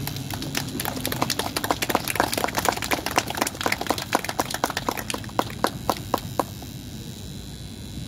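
A small crowd clapping, a scatter of separate hand claps that thins out and stops about six and a half seconds in.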